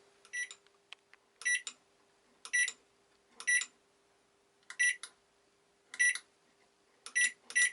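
Microwave oven control panel beeping as its buttons are pressed: short high beeps about once a second, coming closer together near the end. The beeping shows the newly replaced buttons are registering presses.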